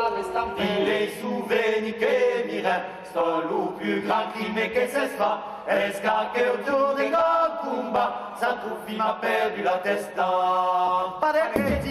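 Men's vocal group singing a cappella polyphony in a chant style, one voice holding a steady low drone under the others. The singing breaks off near the end.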